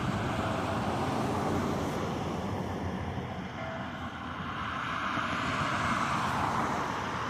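Steady outdoor rumble of vehicle noise, dipping slightly about four seconds in and building again; no bell is heard.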